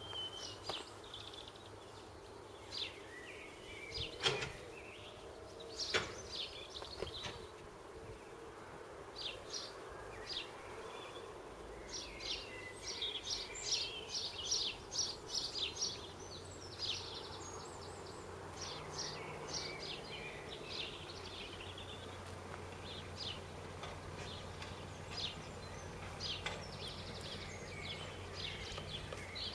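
Birds chirping outdoors, with two sharp knocks about four and six seconds in from the level-crossing gates being swung shut and latched. A faint low steady hum sets in about halfway through.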